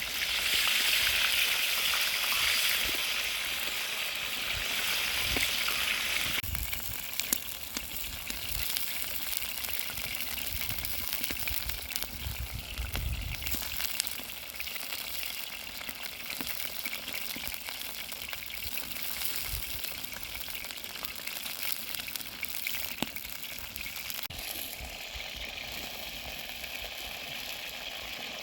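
Food sizzling in hot oil in a sadj over a campfire: a steady frying hiss, loudest for the first six seconds, then quieter after an abrupt change.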